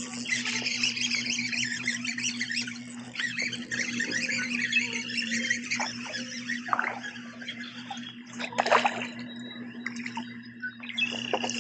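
Water splashing as a hooked bass thrashes at the surface while being fought to the kayak, with a few sharper splashes later on. A steady low hum from the kayak's trolling motor runs underneath.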